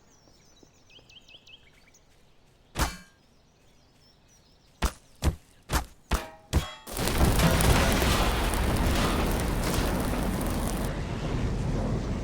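A very old microwave oven: a thump, then five sharp clicks in quick succession, and from about halfway through the oven runs with a loud, steady hum and rushing noise.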